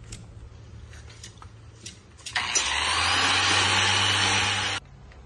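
Electric sander with a round pad running against hardened body filler, starting abruptly about two seconds in, running steadily for about two and a half seconds, then cutting off suddenly.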